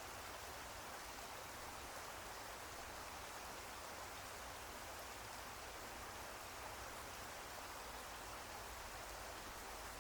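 Faint, steady rain, an even hiss with light scattered drop sounds.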